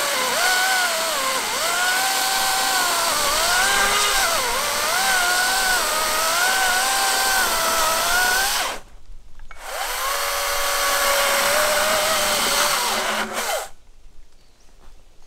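Wild Badger cordless chainsaw's electric motor whining as it cuts through a pine log. Its pitch dips and recovers again and again as the chain bogs under load. It stops about nine seconds in, then runs again for about four seconds, its pitch rising just before it stops.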